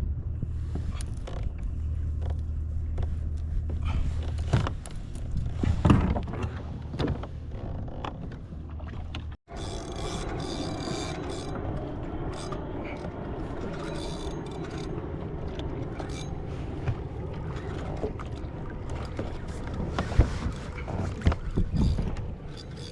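Kayak on open water: wind and water noise with irregular knocks and splashes against the hull. A steady low hum runs through the first part and stops at an abrupt break about nine seconds in, after which the water and wind noise carries on with more knocks.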